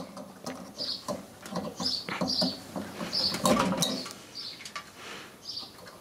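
Hands working wires and multimeter probe leads at a microwave magnetron's filament terminals: an irregular run of small scratches, rustles and clicks as the leads are pulled off and the probes are fitted.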